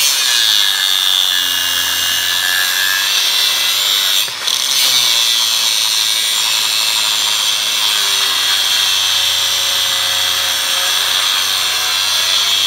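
Angle grinder with a thin cutting disc cutting through steel rebar: a loud, continuous high-pitched grinding, easing for a moment about four seconds in.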